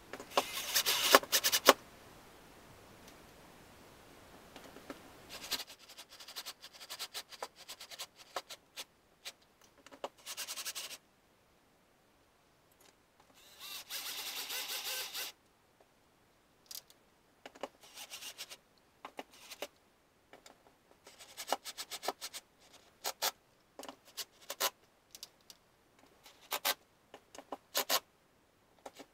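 Parkside cordless drill-driver driving screws through a metal bike-hook bracket into wall plugs in drywall, run in many short trigger bursts, the loudest near the start, with one steadier run of about a second and a half midway.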